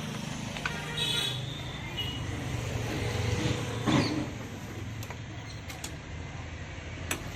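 Road traffic: a steady low hum of vehicle engines, with a few short higher-pitched sounds about one and four seconds in.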